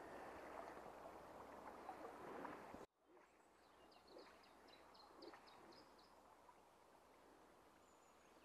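Faint steady rush of flowing stream water that cuts off abruptly about three seconds in. Then quieter streamside background, in which a small bird gives a quick run of about eight high chirps.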